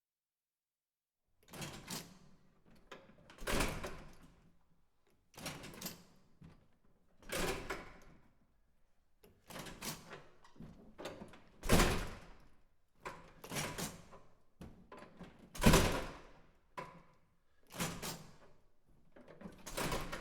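Push-bar door worked over and over: about ten separate door sounds, each a couple of seconds apart, after a short silence at the start. Two of them, a little past halfway and about three quarters through, are the loudest.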